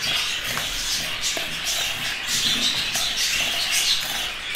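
A spoon stirring and scraping a crumbly budgie food mix in a plastic bowl, in short repeated rasping strokes, with budgerigars chirping in the background.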